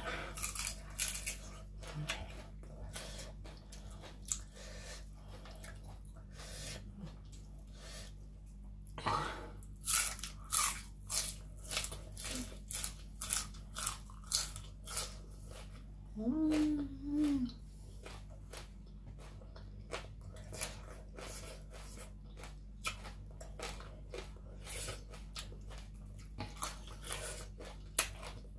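Close-up chewing and crunching of crisp raw vegetables, with many sharp crunches coming thick and fast about a third of the way in. A brief hummed vocal sound comes a little past the middle.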